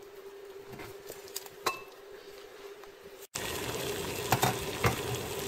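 A faint steady hum with a few light ticks. About three seconds in it cuts abruptly to a pot of water at a rolling boil on a gas stove, a loud bubbling hiss with scattered pops.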